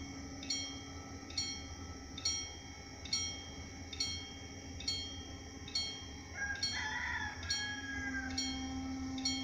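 Railway level-crossing warning bell ringing single strokes a little under once a second while the crossing barriers lower, over a steady low hum.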